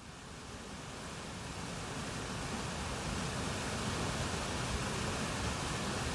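Steady rushing water fades in from silence, growing louder over the first couple of seconds and then holding even.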